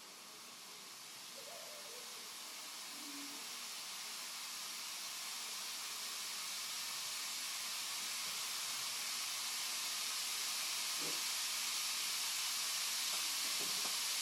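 Handheld steam cleaner hissing as steam escapes its nozzle, a steady hiss that grows steadily louder throughout.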